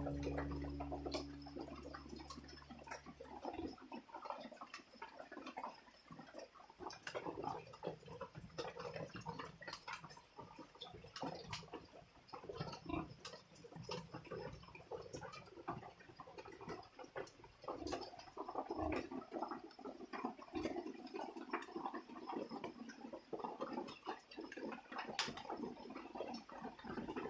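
Background music fades out in the first few seconds, then faint, irregular little sounds from newborn piglets in their pen, with soft clicks and rustles.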